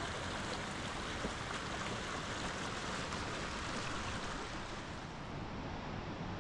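Running water of a mountain stream, a steady rush.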